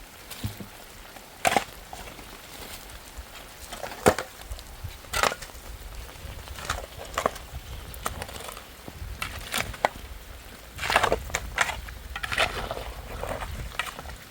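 Irregular sharp wooden knocks and cracks, as of wood being struck or broken, coming every second or so at uneven intervals over a low background rumble.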